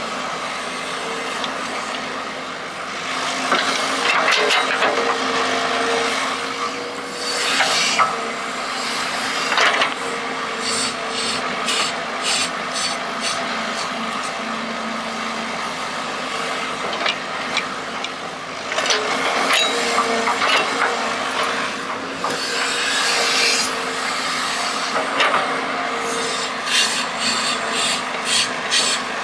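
Model RC hydraulic excavator working: its pump motor whines steadily while the bucket scrapes and rasps through soil in repeated gritty bursts, with quick rattling clicks now and then.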